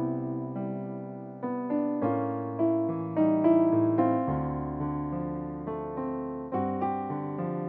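Background piano music: slow chords and melody notes, each struck and then fading away.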